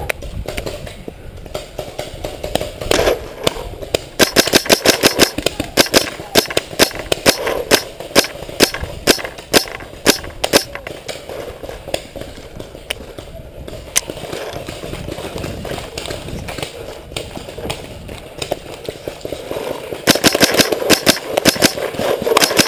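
Paintball markers firing rapid strings of shots, several a second, in a long volley through the first half and another near the end.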